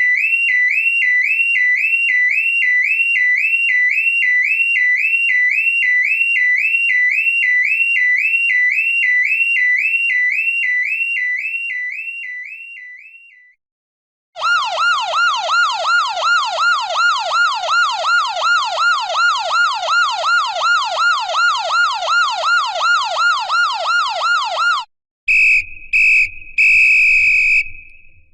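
Electronic siren effects. First a high siren warbles up and down about twice a second and fades out. After a brief gap, a lower siren yelps up and down faster, about three times a second, and cuts off suddenly; near the end come three short high blasts and then a longer one.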